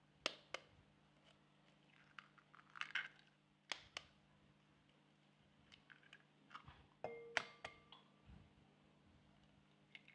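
Eggs being cracked by hand into a glass mixing bowl: scattered short cracks and clicks of eggshell breaking, with a light clink against the glass about seven seconds in.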